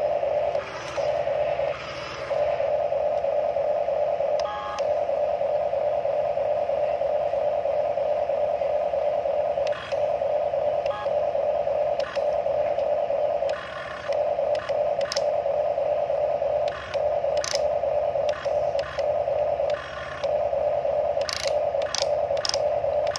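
Electric arm motors of a Huina remote-control excavator whining steadily as the boom and bucket are worked down into sand, cutting out briefly every few seconds, with scattered light clicks.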